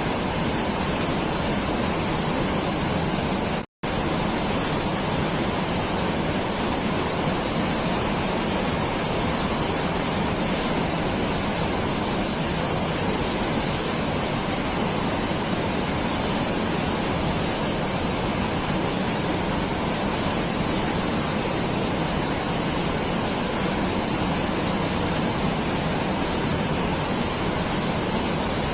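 Continuous, even rushing noise with no rhythm or pitch, cutting out completely for a split second about four seconds in.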